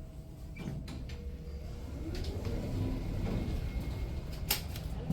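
Elevator running and its sliding doors opening: a low rumble that grows louder, with clicks about a second in and a sharp clack near the end.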